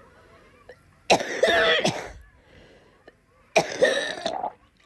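A person coughing: two loud coughing fits, the first about a second in and the second near the end, each lasting about a second.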